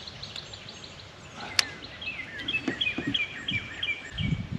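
A songbird singing outdoors: a quick run of short, evenly repeated high chirps in the second half, with fainter chirps before it. A sharp click about a second and a half in and a few low knocks near the end.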